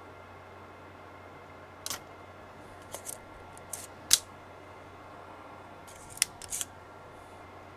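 A handful of sharp plastic clicks and snaps from a large handheld desoldering pump (solder sucker) being handled, in two clusters, the loudest snap about four seconds in.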